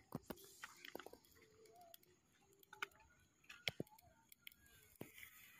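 Near silence, with scattered faint clicks and ticks.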